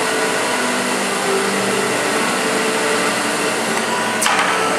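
Propane torch flame hissing steadily while a cordless drill spins a brass rifle case in its flame for annealing, the drill motor's hum shifting in pitch. A short sharp sound about four seconds in.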